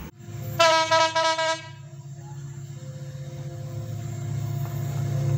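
Diesel locomotive horn sounding a quick run of short blasts, then the low rumble of the approaching coal train's locomotive growing steadily louder.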